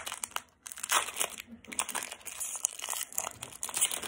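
Foil Pokémon trading-card booster pack wrapper crinkling in the hands as it is opened, an irregular run of crackles with a brief pause about half a second in.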